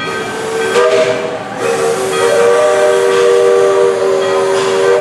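Steam locomotive whistle sounding a chord of several steady tones over a hiss of steam: a short blast, a brief break about a second and a half in, then one long blast.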